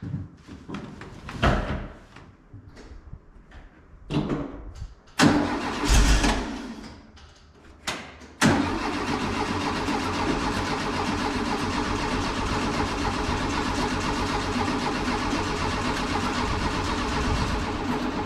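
Air-cooled flat-four engine of a 1964 VW Beetle being cranked on the starter. A few short separate bursts come first, then from about eight seconds in a long steady crank. The engine does not catch, because its carburettor float bowls have been emptied.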